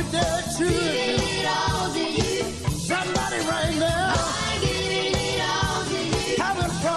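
Gospel group recording: young male voices singing in harmony with vibrato, over a steady drum beat and bass.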